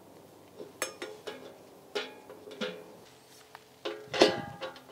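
Background music of plucked-string notes, one or two a second, each ringing briefly, with a louder note near the end.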